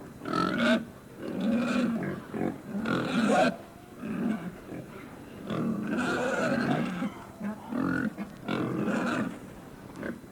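A sound effect of animal calls: a run of pitched cries, each lasting up to about a second and a half, with short pauses between them.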